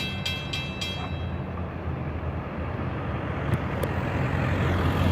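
Railroad grade crossing bell clanging in a quick even rhythm, stopping about a second in, over a low rumble that grows steadily louder as a train approaches.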